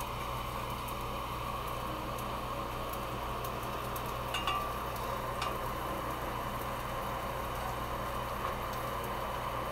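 Mushrooms frying in oil in a cast-iron skillet: a steady sizzle, with a few light clicks of metal tongs against the pan about halfway through as the pieces are turned.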